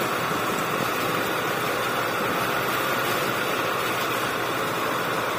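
Tractor-driven soybean thresher (huller) running at full speed as dried soybean plants are fed into it: an even, steady rushing noise.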